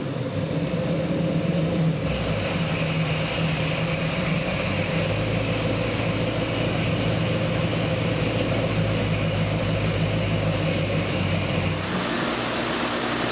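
Ford 347 stroker small-block V8 with a Holley carburetor idling steadily; its tone shifts slightly about five seconds in.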